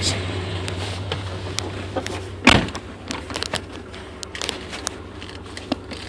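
Vehicle engine idling with a steady low hum, the voltmeter at about 14.9 volts showing the alternator charging. A single heavy thud comes about two and a half seconds in, among small clicks and knocks.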